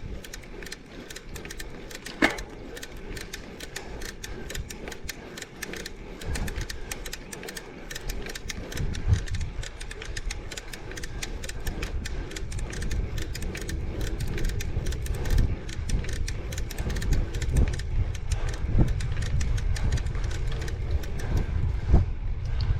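Bicycle making a fast, uneven clicking noise over a low rumble, a mechanical click of the kind riders chase down as a fault.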